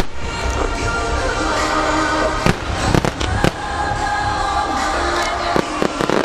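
Fireworks shells bursting with sharp bangs: a few about two and a half to three and a half seconds in, then a quicker cluster near the end. Music with held notes plays underneath.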